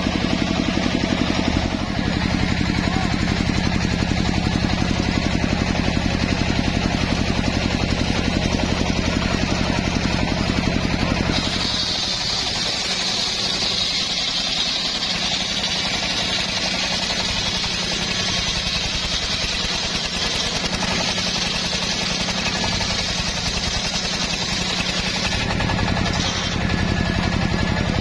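Homemade engine-driven circular sawmill running: first the engine's steady hum with the blade spinning free, then about eleven seconds in the blade enters the log and a high hissing whine of the cut takes over while the engine's low hum weakens under the load. Near the end the blade runs free again and the plain engine hum returns.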